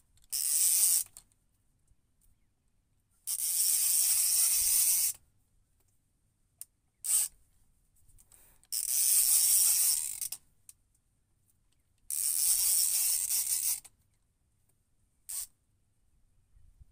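Multiplier sea-fishing reel ratcheting in six bursts, four lasting one to two seconds and two very short, as a stubborn fish is played and wound in on a bent boat rod.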